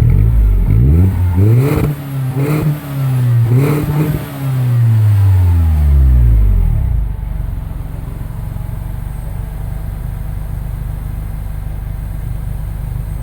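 Mini Cooper Clubman R55's four-cylinder engine revved through its aftermarket FOX stainless-steel exhaust with a 90 mm tailpipe: several quick rev blips with a few sharp cracks, then a long fall about six seconds in to a steady idle.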